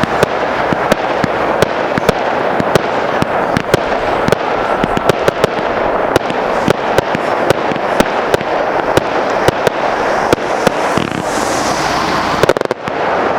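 Fireworks display firing continuously: many sharp reports, several a second, over a dense constant crackle, with a brief lull near the end.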